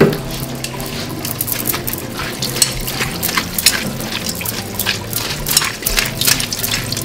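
Tap water running over pickled cabbage in a stainless-steel colander while hands turn and squeeze it, with many sharp splashes and clicks.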